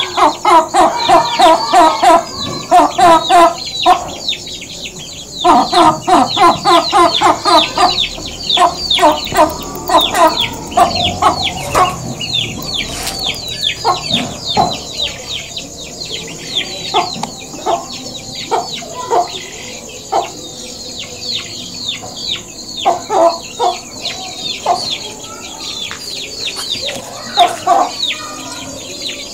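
A hen clucking a fast, rhythmic 'gog gog gog' as it settles to roost for the night. There are two long runs at the start and again around six to eight seconds in, then shorter scattered runs, over continual high-pitched chirping.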